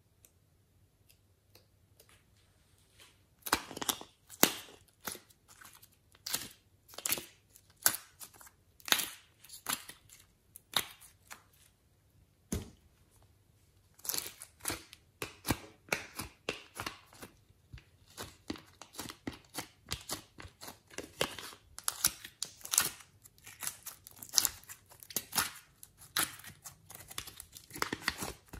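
Crackling and sharp irregular clicks of a thin plastic heart-shaped clay container being pressed and flexed while the clay is pried out of it, along with the clay tearing. They start about three seconds in, after a quiet opening, with a short lull about halfway through.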